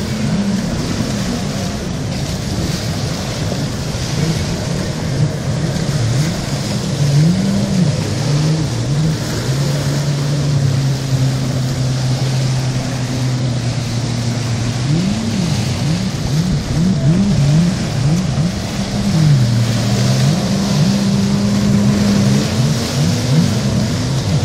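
Jet ski engine running, its pitch swinging up and down again and again as the throttle is opened and eased, held steady for a few seconds in the middle and again near the end, over a constant rush of noise.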